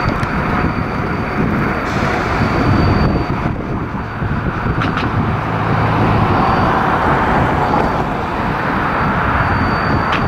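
Steady rumble of a Metra diesel passenger locomotive hauling a train slowly toward the microphone, blended with city traffic noise. A couple of short clicks come through, one near the middle and one at the end.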